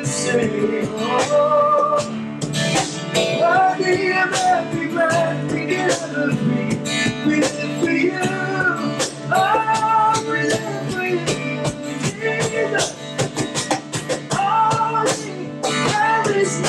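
Worship song performed by two men singing over a strummed steel-string acoustic guitar.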